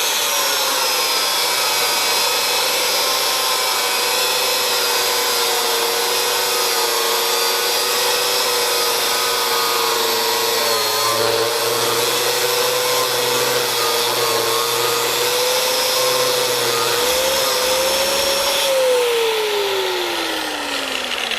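Electric angle grinder cutting a slot down the middle of a small steel piece held in a vise: a loud, steady motor whine over the grinding noise, its pitch dipping slightly now and then under load. Near the end the grinder is switched off and winds down, its pitch falling steadily.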